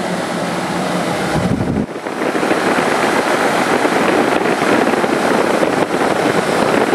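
An 8,000 BTU Frigidaire window air conditioner running, with a steady rush of air from its fan and vents. A low rumble just before two seconds in, then the rush grows louder and buffets the microphone as it nears the vents.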